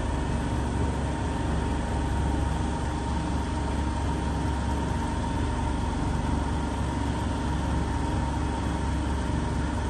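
Automatic slim-cigarette making machine running steadily: a constant low motor hum with a thin, steady high whine over it.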